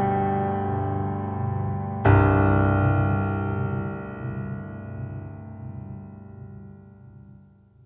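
Background piano music: a sustained chord fades, another is struck about two seconds in and slowly dies away until it is nearly silent at the end.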